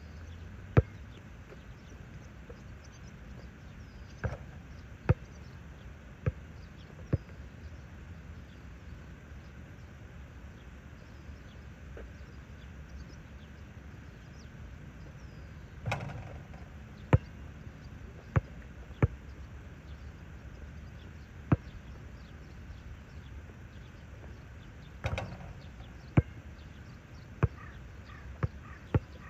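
A basketball bouncing on an outdoor asphalt court: single sharp knocks, one to several seconds apart, some in quick pairs. About halfway and again near the end comes a longer impact with a short ringing tail.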